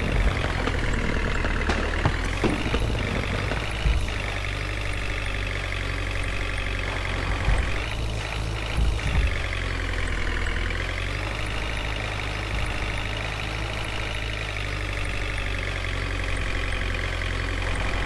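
Heavy vehicle's diesel engine running steadily, its pitch rising and falling slowly, with a few short knocks about 4 s and again 8 to 9 s in.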